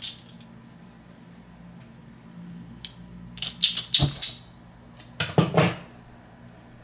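Oxygen-propane mini torch being lit: a few sharp clicks and scrapes, then the flame catches with a pop about four seconds in, followed by another short loud burst of noise.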